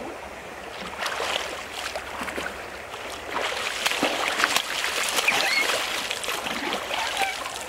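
Water splashing and sloshing as people wade and thrash their arms through waist-deep river water, with many small splashes that build up and are busiest around the middle of the stretch.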